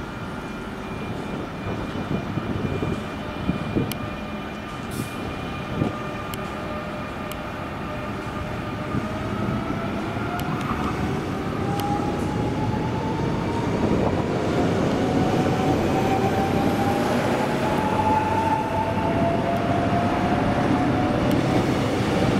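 CP series 2240 electric multiple unit running along the platform, with a few sharp clicks in the first seconds. Then a whine rises steadily in pitch and the sound grows louder as the train gathers speed.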